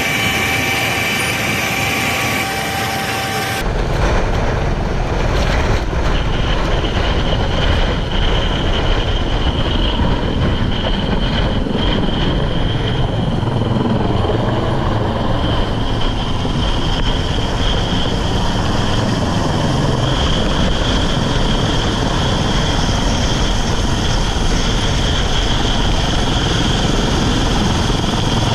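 Loud engine noise. About three and a half seconds in, a steady pitched hum cuts abruptly to a heavier, deeper engine rumble with a steady high whine above it.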